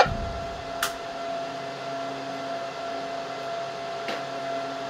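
Icom ID-5100 transceiver's speaker: a short squelch-tail burst as the incoming transmission drops off, then steady hiss and low hum between transmissions. Two sharp clicks come about one second and four seconds in.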